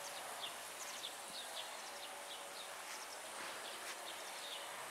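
Faint garden ambience: small birds chirping again and again over a steady hiss, with a faint steady hum coming in about a second and a half in.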